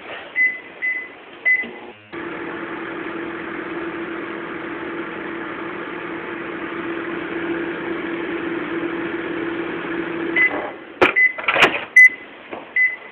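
Microwave oven: keypad beeps three times as it is set, then the oven runs with a steady hum for about eight seconds and stops with beeps and a few clicks near the end.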